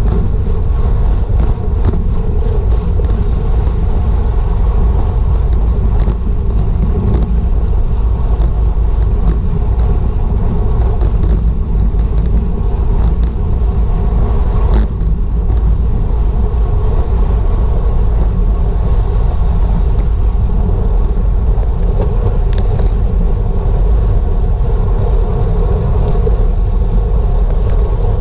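Wind buffeting the microphone of a bicycle-mounted action camera while riding, a steady low rumble, with scattered light clicks throughout.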